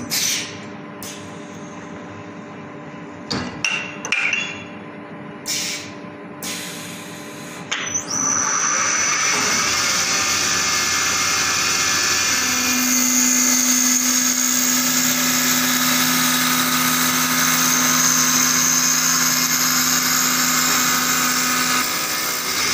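Automatic CNC wood lathe. For the first several seconds it runs quieter, with a few brief noisy bursts. From about eight seconds in it turns a wooden blank: a loud, steady hiss of the cutter taking wood, with a steady motor hum underneath.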